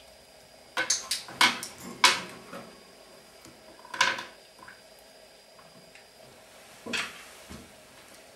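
Sharp clicks and knocks of small hard objects on a wooden tabletop: a quick flurry about a second in, a single knock at about four seconds and another near the end.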